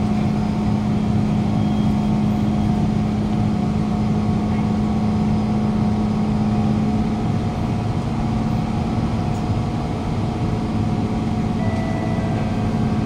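Kawasaki Heavy Industries C151 train standing at a station platform with its doors open: a steady hum from the stationary train's onboard equipment over station background noise. A faint high tone begins about twelve seconds in.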